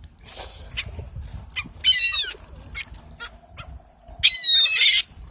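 Park birds calling: two loud bursts of high, harsh calls, one about two seconds in and a longer one near the end.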